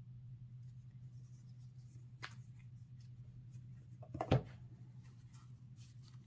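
Light handling of a trading-card starter deck and its packaging: faint rustles and small clicks, a sharper click about two seconds in and a louder knock about four seconds in, over a steady low hum.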